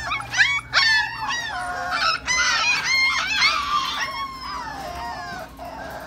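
A litter of four-week-old puppies whining and yelping together, many high-pitched cries overlapping, busiest in the first few seconds and easing off near the end.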